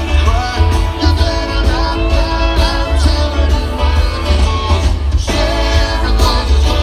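Live band playing amplified music through a PA, a singer's voice over the band with a heavy bass.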